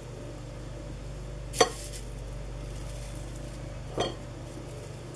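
Hands handling a ceramic bowl and cheesecloth while wrapping an egg in onion skins: two short light knocks, about two and a half seconds apart, over a steady low hum.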